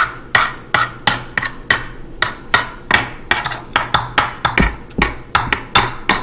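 Metal spatulas chopping ice cream and mix-ins against a wooden cutting board: a rapid, even run of sharp knocks, about three a second.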